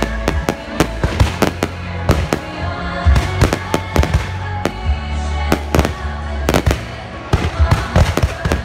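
A fireworks display: aerial shells bursting in rapid, irregular bangs and crackles throughout, with music playing underneath.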